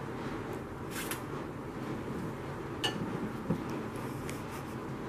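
Forks on ramen bowls while noodles are eaten: a few light clinks spaced a second or two apart over a steady low background noise.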